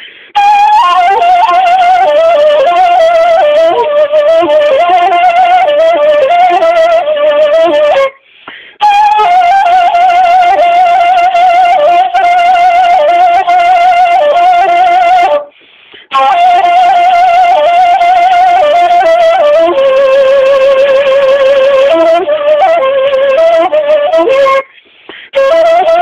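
Solo woodwind playing an ornamented Kurdish folk melody in long held phrases, the notes wavering and trilled, with short breaks for breath three times.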